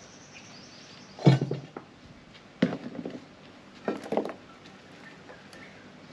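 Knocks and rustles of hands working plants and potting soil into a flower pot standing on a wooden table, in three short bursts: about a second in, two and a half seconds in and four seconds in, the first the loudest.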